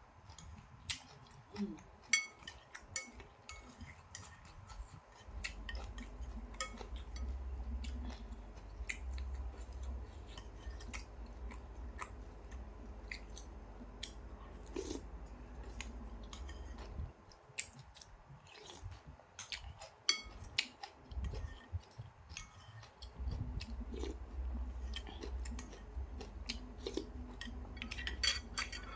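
Close-up eating of nam tok noodle soup: chewing, with sharp clicks and clinks of a spoon or chopsticks against the bowl scattered throughout.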